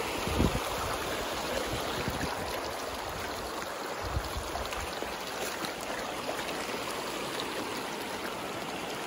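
Shallow mountain creek rushing over rocks, a steady wash of water. There are two brief low thumps, about half a second in and about four seconds in.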